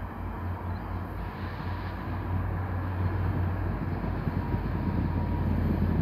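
Via Rail passenger train passing in the distance, heard as a steady low rumble that slowly grows louder toward the end.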